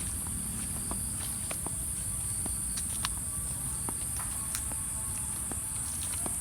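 Steady, high-pitched insect chorus, with scattered light clicks and crunches, like footsteps on the ground.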